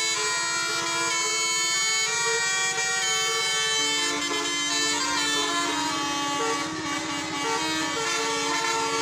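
Bus 'telolet' multi-tone basuri horn playing a tune: several held notes sound together and change pitch in steps.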